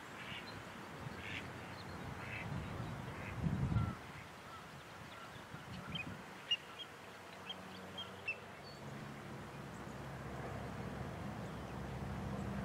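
Scattered short bird calls from water birds on a shallow marsh pond, a few in the first three seconds and a quick run of higher chirps between six and eight seconds in. A brief low rumble just before four seconds in is the loudest sound, and a low steady hum comes in during the second half.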